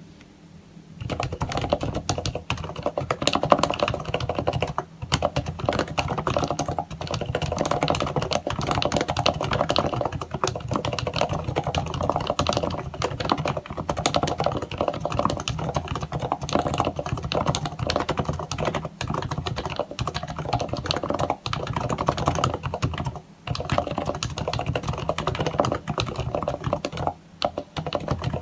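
Continuous fast typing on a Happy Hacking Keyboard Professional with silenced, lubed Topre switches: a dense stream of keystrokes starting about a second in, broken by a few short pauses.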